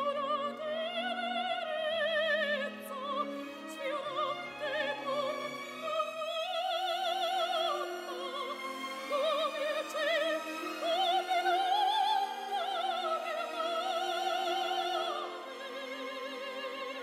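Operatic soprano singing long, sustained phrases with wide vibrato over orchestral accompaniment.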